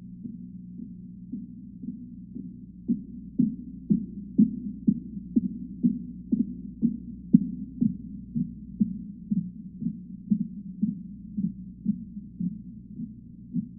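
Heavily muffled TV programme soundtrack, cut off above the low range: a steady low hum with a regular thump about twice a second, strongest between about three and eight seconds in.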